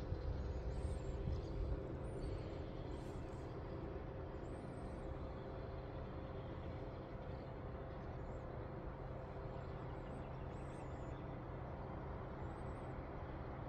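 Steady low background rumble, like distant road traffic, with a faint steady hum. A few faint, very high bird chirps are scattered through it; the godwits themselves are not calling.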